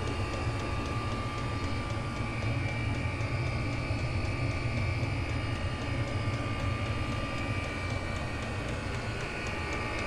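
Chinese diesel air heater running steadily: a constant whirring drone from its blower and burner over a low hum, with a faint regular ticking.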